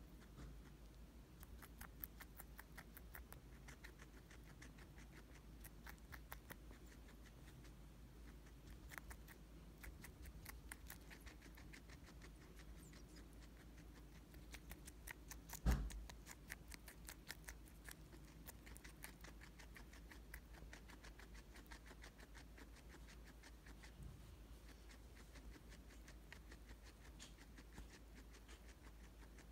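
Guinea pig nibbling and chewing a small tomato: faint, quick clicking bites in runs of a few seconds, with one dull thump about halfway through.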